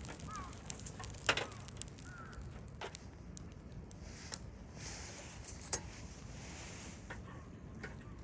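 Wood campfire crackling in a fire pit, with irregular sharp pops. The loudest pop comes just before six seconds, and there is a soft hiss in the second half.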